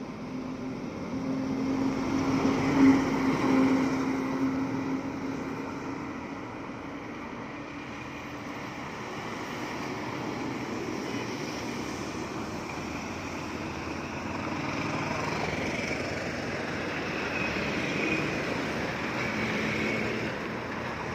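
Heavy road vehicles driving past, an engine's low drone loudest about three seconds in, then road noise that swells again in the last few seconds.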